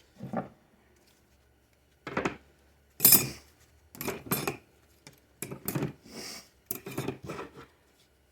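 Metal parts of a 4L60E automatic transmission's low and reverse clutch pack clinking and clattering as they are lifted out and set down, in irregular clusters of sharp knocks with the loudest about three seconds in.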